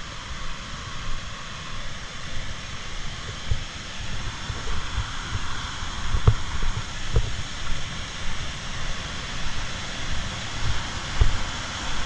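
Large waterfall giving a steady rush of falling water that grows a little louder partway through, with wind buffeting the microphone in irregular low thumps.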